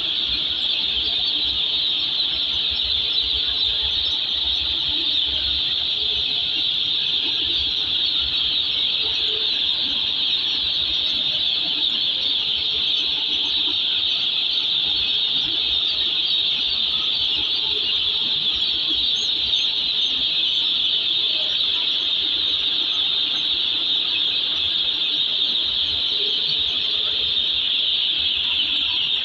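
Thousands of day-old chicks peeping together in their delivery crates, a dense, steady, high-pitched chorus.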